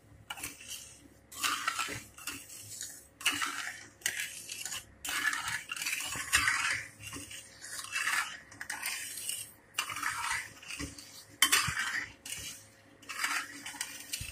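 A metal spoon and then a flat metal spatula stirring sugar and water in an aluminium pan, scraping and clinking against the pan in repeated strokes about one or two a second, as the sugar syrup is started.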